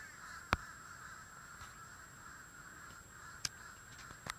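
Faint, steady calling of distant birds across open water, with a few sharp clicks: one about half a second in and two near the end.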